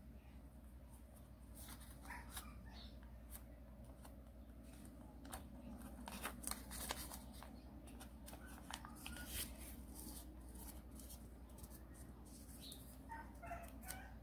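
A sheet of origami paper rustles and crinkles as hands fold it and press the creases, with scattered short crackles and taps against the cutting mat, over a low steady hum.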